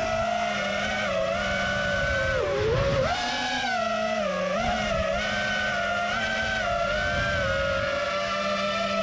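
FPV racing drone's motors and propellers whining, the pitch dipping and rising as the throttle changes, over a steady lower hum.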